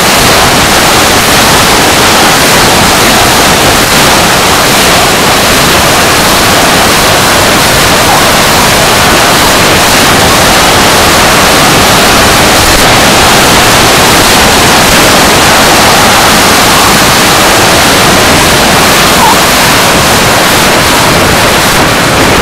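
Loud, steady rushing roar of a radio-controlled model jet in flight, picked up by a camera mounted on board: engine noise and airflow over the microphone.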